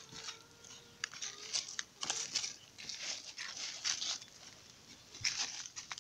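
Hand hoe scraping and chopping into dry soil and fallen leaves around a plant's base, working fertilizer into the ground. It comes as a run of short gritty strokes, about one a second, with a longer pause before the last one near the end.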